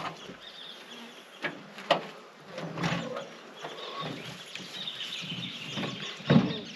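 Birds chirping in the background, with a few sharp knocks and clatters; the loudest knock comes about six seconds in.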